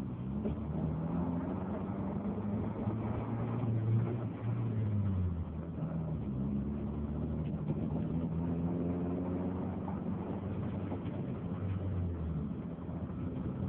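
Car engine running and revved up and back down twice, its pitch rising and falling, with an uneven running that the owner suspects is a misfire.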